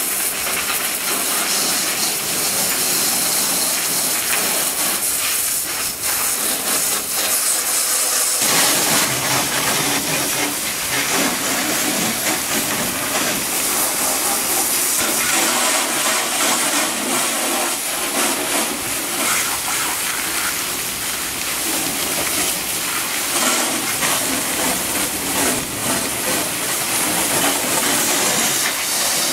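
Pressure washer spraying a high-pressure water jet inside a cattle trailer, a steady loud hiss; the sound becomes fuller and lower about eight seconds in.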